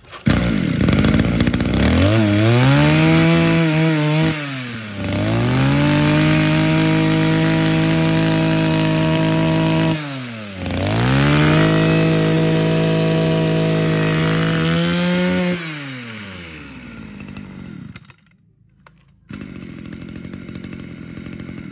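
Echo 26cc two-stroke brush cutter engine running and being revved. It rises to a high, steady pitch three times, about 2, 5 and 11 seconds in, dropping back between. From about 15 seconds in it falls away and stops near 18 seconds. It runs crisp ("giòn"), which the seller takes as the sign of an engine in good original condition.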